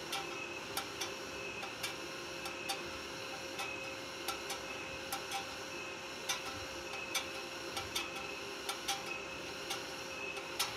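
Welding electrode tip tapping and scraping on a galvanized steel square tube: sharp, irregular metallic clicks, two or three a second, over a steady hum.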